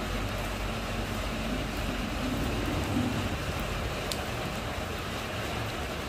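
Steady rain hissing down on a puddle and wet ground, with a low rumble underneath and one sharper tick about four seconds in.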